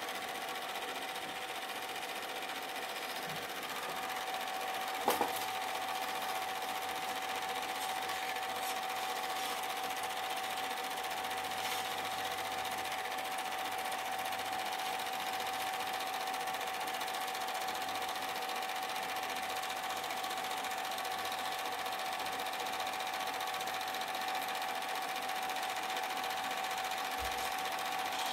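Super 8 film projector running steadily, its mechanism and motor giving a constant whine, with a single short click about five seconds in.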